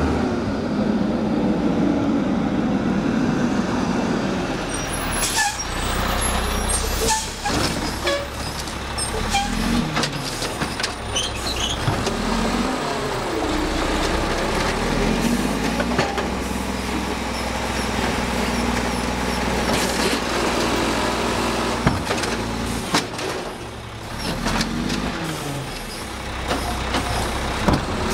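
Mack LE garbage truck's diesel engine running, revving up and down several times as the automated side-loader arm grabs a recycling cart, lifts it to dump and sets it down. An air brake hisses and the cart and arm clank early on.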